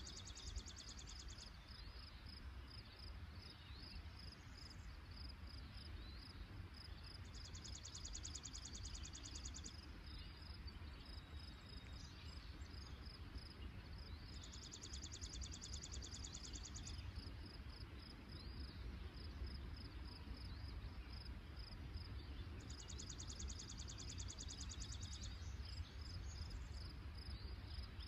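Rural outdoor ambience: a high, dry trill of about two and a half seconds repeats about every seven seconds over a steady fast insect pulsing and a faint low rumble.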